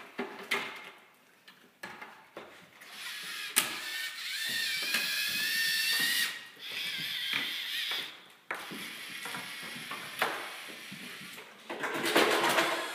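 Lego robot's electric motors and plastic gear trains whining as it drives and works its attachments, the whine rising slightly in pitch over a few seconds in the middle, with sharp clicks and clacks of Lego parts.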